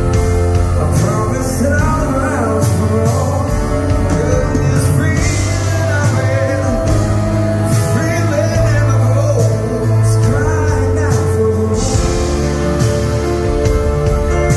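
A live pop-rock band playing: grand piano and drum kit, with a male voice singing over them.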